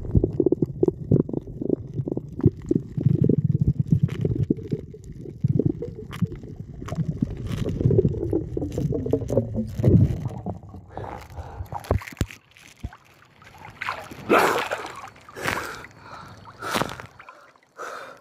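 Muffled gurgling and sloshing of sea water heard from a camera held underwater, with many small knocks. After about twelve seconds the camera is out of the water, it goes quieter, and a few short splashes of shallow water follow.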